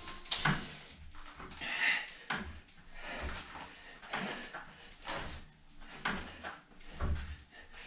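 Rhythmic rustling and knocking from resistance cords anchored over a door, stretched and released in alternating front-crawl arm pulls, about one pull a second.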